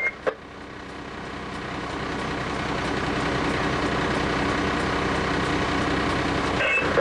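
Fire truck's diesel engine running with a steady drone that grows louder over the first two or three seconds, then holds. Short radio chirps sound at the start and near the end.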